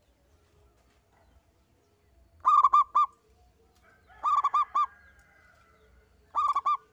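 Zebra dove (perkutut) singing: three short phrases of rapid, clipped cooing notes, each phrase about half a second long and a second and a half to two seconds apart.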